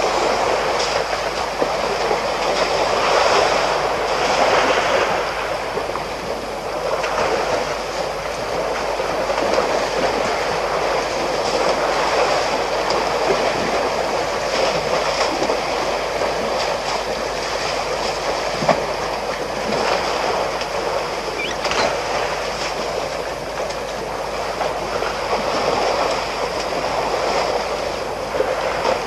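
African elephants splashing and sloshing as they wallow in muddy shallow water. The water noise is continuous and swells and eases every few seconds, over a steady high-pitched hiss.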